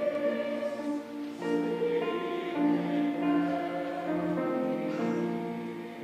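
A choir singing slow, held notes that change pitch every second or so.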